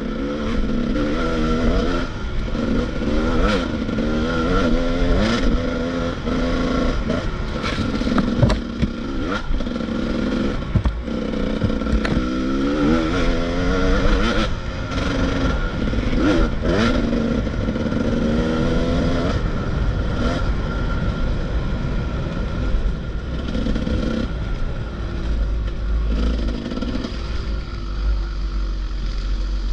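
Enduro motorcycle engine revving up and down repeatedly as the bike is ridden off-road, with scattered knocks and rattles. The engine note steadies over the last several seconds.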